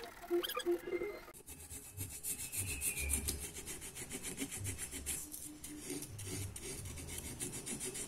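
Rapid, repeated scraping and rubbing strokes as carbon deposits are worked off a Yamaha Xeon engine cylinder. The crust is soft and sticky rather than hard and crackly, which the mechanic takes for a sign that oil is getting into the combustion chamber.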